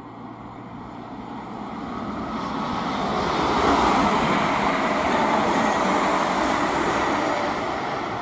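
Royal Mail Class 325 electric postal multiple unit passing through on the main line: a rush of wheels on rail that builds over the first few seconds, is loudest around the middle, and eases off as it goes by.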